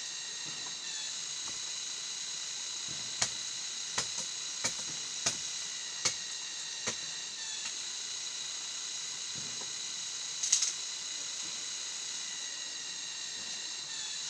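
Steady high-pitched drone of forest insects such as cicadas or crickets, several shrill tones held without a break. Over it come a run of about six sharp clicks or knocks a second or less apart, and a brief louder clatter about ten seconds in.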